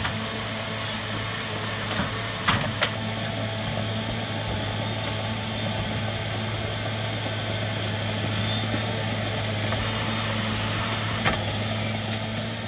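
Caterpillar 963C track loader's diesel engine running steadily under load as the bucket cuts through sod and soil, with two sharp knocks a few seconds in and another near the end.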